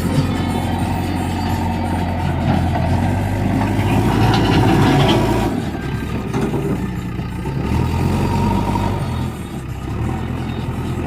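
JCB 3DX backhoe loader's diesel engine running steadily; it grows louder about four seconds in, then drops back a second or so later.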